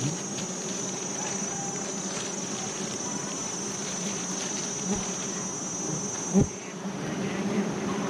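A dense, steady buzz of a swarm of wild honeybees around a giant hive that is being cut for its honeycomb. A short louder burst comes about six and a half seconds in.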